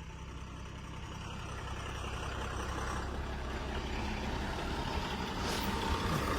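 Heavy diesel engine running steadily, growing gradually louder.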